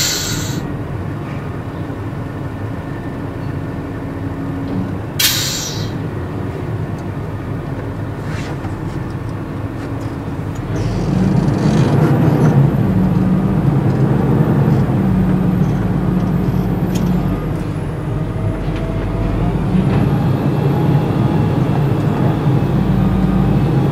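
Truck engine running, heard from inside the cab, with two short air-brake hisses: one at the start and another about five seconds in. About eleven seconds in the engine grows louder and deeper as the truck pulls away.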